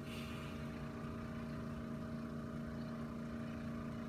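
Steady low background hum with a constant tone, and a brief soft rustle at the very start.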